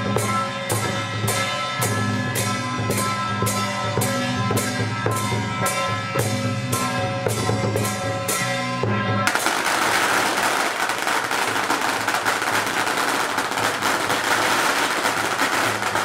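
Music with a steady drumbeat of about three strikes a second under sustained tones. About nine seconds in it gives way abruptly to the dense, continuous crackle of a string of firecrackers going off.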